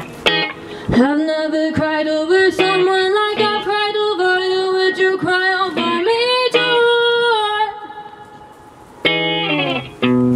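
Live band music from a stripped-back set: guitar, with a sliding, held melody line coming in about a second in. The melody fades away near the end, and guitar chords come back just before the close.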